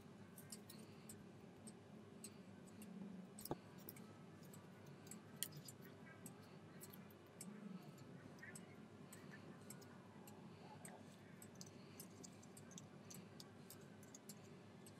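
Near silence broken by faint, irregular ticks and soft rustles of a small sheet of paper being creased and folded by hand, over a low steady hum.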